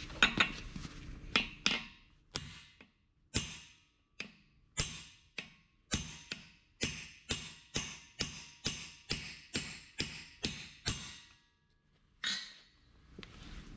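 A hammer strikes a steel punch again and again, driving a seized, cut-off bolt nub out of the sleeve of a leaf-spring bushing on an anvil. Each blow gives a sharp metallic crack with a short ring. A few scattered blows come first, then a steady run of about two a second that stops about eleven seconds in.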